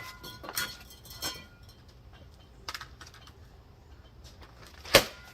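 Scattered light clicks and clinks, like small metal objects being handled, with a brief ringing at the start and one sharper click about five seconds in.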